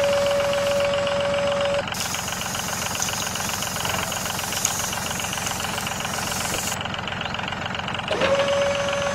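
Small motor of a mini toy tractor running with a fast, steady rattle. A steady high tone over it cuts out about two seconds in and returns with a short swoop near the end.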